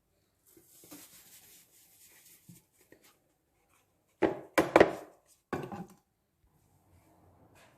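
Kitchen items being handled on a table: light rustling, then three sharp knocks in quick succession about four seconds in and one more a second later.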